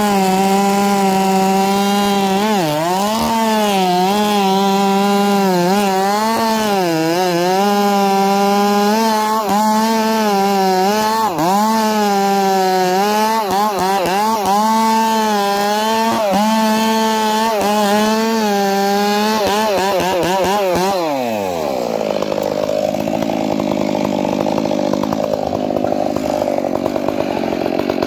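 Two-stroke chainsaw cutting into a redwood trunk at full throttle, its pitch dipping and recovering as the chain bogs under load. About 20 seconds in the throttle is released and the engine winds down to a rougher idle.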